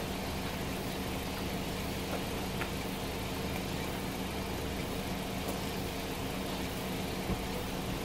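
A car engine idling steadily, a low even hum with a hiss over it. A soft knock about seven seconds in.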